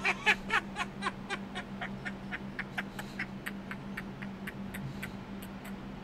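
ElevenLabs AI-generated sound effect of a drunk Santa Claus laughing: a man's rapid ho-ho laugh, about four pulses a second, loudest in the first second and then growing quieter and breathier.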